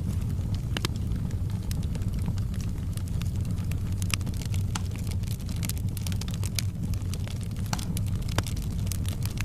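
Wood fire in a fireplace crackling: short sharp pops and snaps at irregular intervals over a steady low rumble of the flames.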